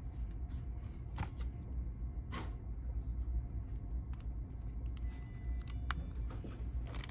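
A few sharp clicks as a SIM card is pushed into the slot of a Novatel MiFi 7000 hotspot with a pen tip, over a steady low hum. Near the end come three short, high electronic beeps.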